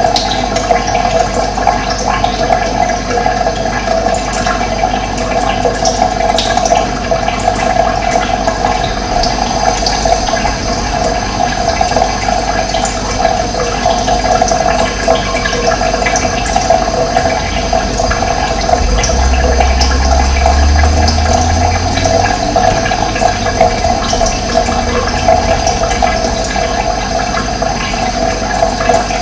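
Running water rushing steadily, with a low rumble joining for several seconds past the middle.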